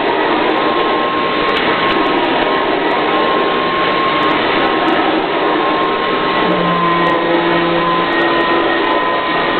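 Upright vacuum cleaner running steadily: a loud, even rush of air with a steady high whine, and a lower hum that joins about two-thirds of the way through.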